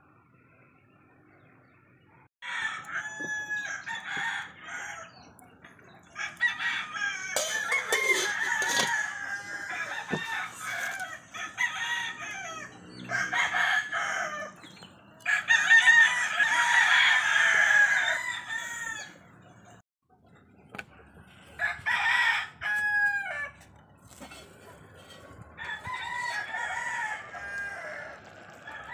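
Chickens calling: roosters crowing again and again in about six stretches of one to four seconds each, some ending on a falling note, with clucking between.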